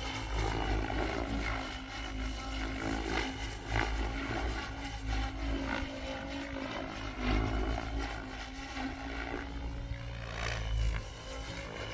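Goosky RS7 electric RC helicopter in flight: its rotor and motor give a steady whine whose pitch drifts up and down as it manoeuvres, with low rumble of wind on the microphone underneath.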